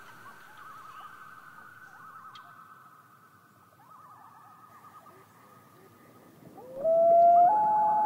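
Common loons calling: faint quavering calls come at intervals, then about six and a half seconds in a loud wail begins. The wail is a long note that rises, then steps up to a higher pitch and holds.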